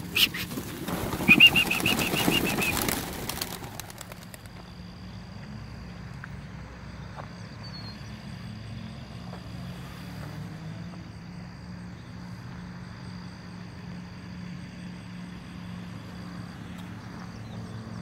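A flock of young homing pigeons bursting out of an opened wooden crate, a loud clatter of flapping wings for the first four seconds or so, with a brief high squeal partway through. After that a steady low hum carries on.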